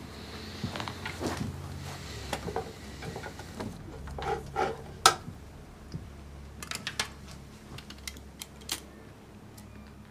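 Scattered light knocks and clinks of small hard objects being handled, the sharpest about halfway through, over a low steady hum.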